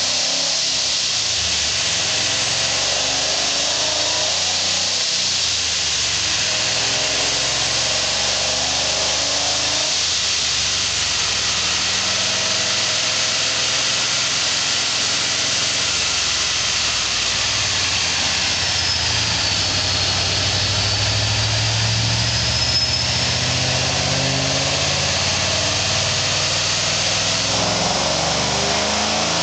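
Supercharged Ford 4.6-litre three-valve V8 of a ProCharger-equipped Roush Stage 2 Mustang idling steadily, under a loud steady hiss.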